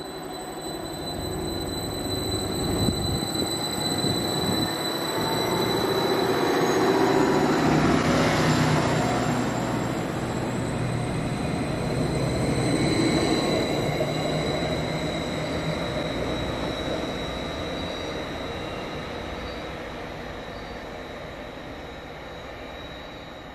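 Greater Anglia Class 755 Stadler bi-mode multiple unit running past the platform, its rumble building to a peak midway and then fading away. A steady high whine runs throughout, and a second whine rises in pitch over several seconds.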